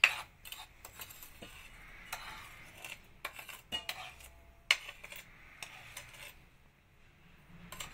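Metal spoon scraping and clinking against a plate while scooping powdered icing sugar into a small bowl, with scattered sharp clinks, the loudest right at the start and another just before the five-second mark.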